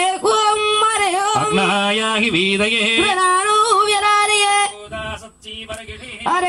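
Devotional hymn sung into a microphone in a high voice, with a lower voice joining at times, in long held and bending notes. The singing breaks off for about a second and a half near the end, then starts again.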